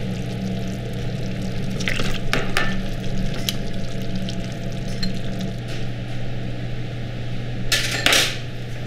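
Stew being served with a metal ladle from a stainless steel stockpot into small metal bowls: wet scooping and a few sharp clinks of metal on metal, with a louder clatter near the end as bowls are handled on the steel counter, over a steady low kitchen hum.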